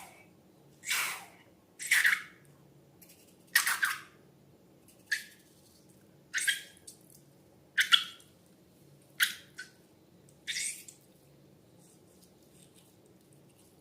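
Slime squelching wetly in short bursts, about nine of them, roughly one a second, stopping a few seconds before the end.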